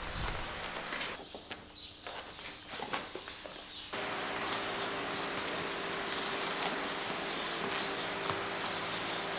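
Light handling sounds, small taps and rustles of cardboard pieces and masking tape being fitted against a fiberglass fender plug, over workshop room noise. About four seconds in the background changes sharply to a steady low hum.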